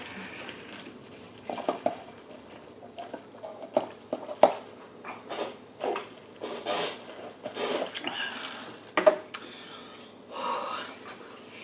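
A person drinking from a paper soda cup: irregular clicks, knocks and swallows as the cup is handled and drunk from, then a heavy breath blown out near the end.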